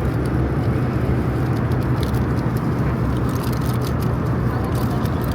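Steady drone of an airliner cabin in flight, engine and airflow noise with a constant low hum. Faint light clicks come in during the second half.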